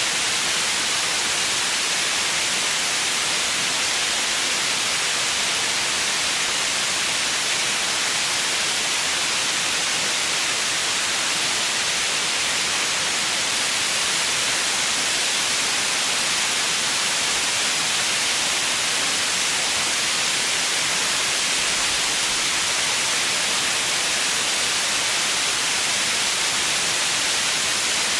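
Steady white noise: a bright, even hiss, strongest in the treble and thin in the bass, holding one level throughout.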